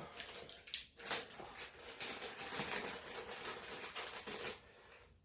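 Rustling with a few light clicks as small car parts are handled and sorted by hand.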